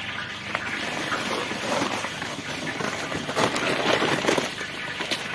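Dry rice grains pouring from a sack into a galvanized tub of water, a steady rushing hiss with a few sharp ticks of grains and the sack against the metal.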